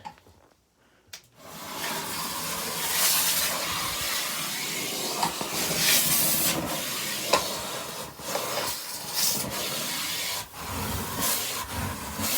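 M&S AirVac central vacuum drawing air: a steady rushing hiss of suction through the hose and tool sets in about a second in, surging and briefly dropping away a few times.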